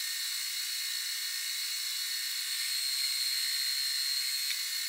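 Takisawa metal lathe running with its chuck spinning steadily, a steady high whine over hiss.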